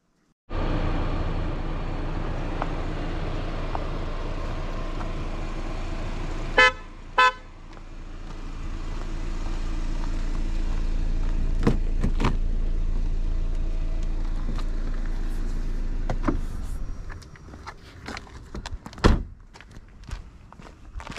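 BMW 530i Touring's 2.0-litre turbo engine running steadily, cutting in suddenly about half a second in, with two short horn toots about a third of the way through. Near the end the engine sound falls away, and there are scattered clicks and one loud thump.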